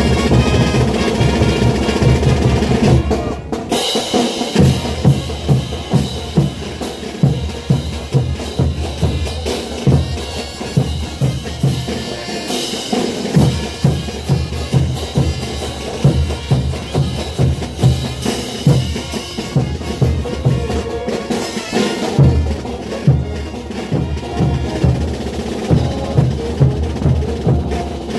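Bolivian carnival brass band playing, driven by bass drum, snare and cymbals. About three seconds in the music thins, and a steady beat of drum strikes carries on.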